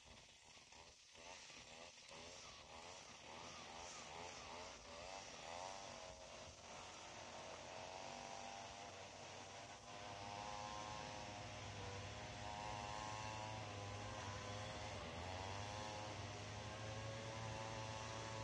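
Gas string trimmer running faintly, its engine pitch rising and falling as it is throttled up and down. A steady low hum joins about ten seconds in.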